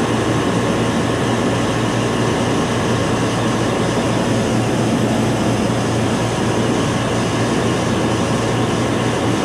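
Steady mechanical din of a refrigeration machine room: neighbouring compressors and condenser fans running, with a constant low hum.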